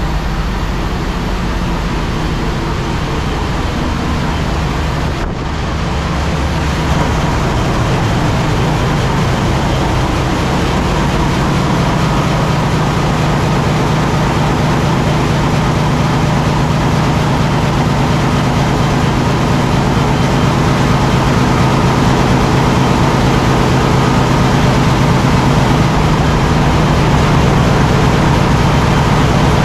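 Loud, steady din of a cruise ship engine room, dominated by the running MaK VM43C V-12 medium-speed main diesel engines with a constant low hum. It dips briefly about five seconds in, then grows slightly louder.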